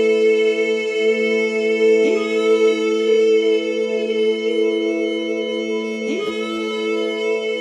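Slow meditative music: a steady chord of held, droning tones, with a short rising slide into the notes about two seconds in and again about six seconds in.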